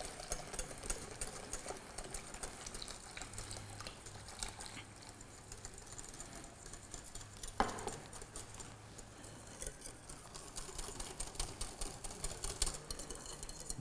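Whisk beating against a glass mixing bowl in quick, light ticks as hot milk is whisked into egg yolks and sugar for a crème brûlée custard. The whisking gets busier and louder in the last few seconds.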